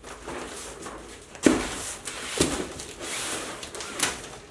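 A cardboard shipping box is set down on a wooden workbench with a knock, then slid and shuffled into place across the wood. Two smaller knocks follow, about a second later and near the end, with scraping between.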